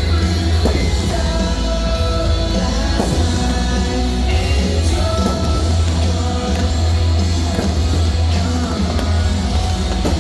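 Rock music with a singer, over a heavy steady bass.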